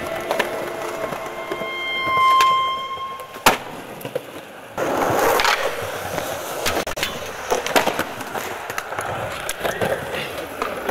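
Skateboard wheels rolling over concrete, with sharp clacks of the board striking the ground, one loud clack about three and a half seconds in. A brief high whine comes just before it.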